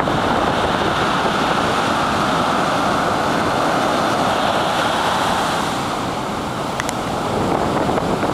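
Ocean surf breaking and foam washing up the sand and draining back, a steady loud rush that eases slightly about six seconds in, with wind buffeting the microphone.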